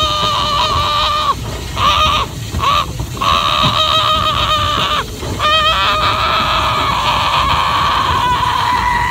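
A boy yelling long, steady-pitched "aaah"s, several in a row with short breaks between them. From about six seconds in, a higher steady held tone carries on.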